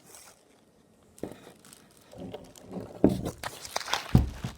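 Handling noise: rustling and clicking with a couple of thumps, the heaviest a low thump a little after four seconds in, and faint children's voices in the background.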